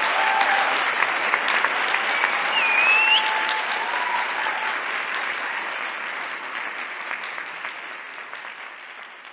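Audience applauding in a concert hall, the clapping gradually dying away, with a high rising cheer about three seconds in.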